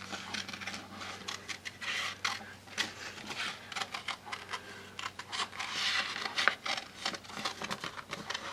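Scissors cutting around an image printed on an iron-on transfer sheet: short, irregular snips with paper rustling between them.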